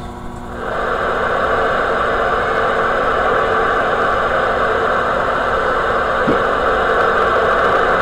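CB radio in receive with no station coming through: a steady hiss of band noise and static from the speaker, rising to full level about half a second to a second in.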